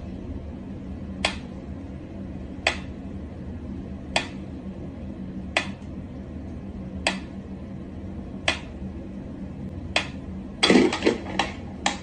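Sharp clicks repeating evenly about once every second and a half over a steady low hum, then a quick flurry of louder clicks and knocks near the end.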